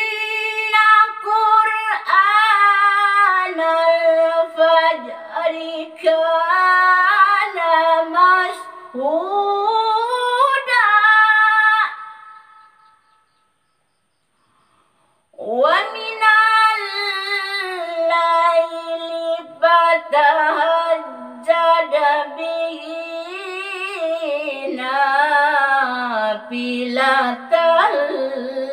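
A woman reciting the Quran in the melodic qiroah style, in long ornamented phrases. The voice breaks off about twelve seconds in for a pause of about three seconds, then starts a second long phrase.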